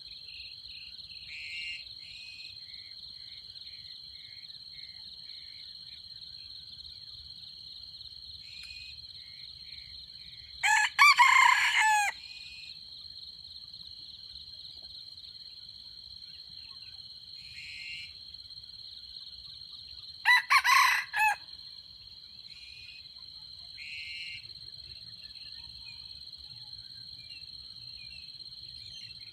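Red junglefowl rooster crowing twice, each a short crow broken into syllables, about ten seconds apart. A steady high insect drone runs underneath, with a few faint chirps.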